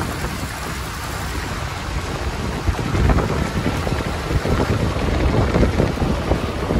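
Toyota Land Cruiser 80 series rolling along a dirt road, heard from a camera by the front wheel: steady tyre noise on the loose dirt with wind on the microphone. It grows louder and rougher about three seconds in.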